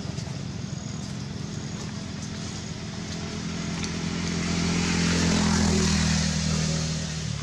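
A motor vehicle's engine running, growing louder to a peak about five to six seconds in and then fading as it passes by.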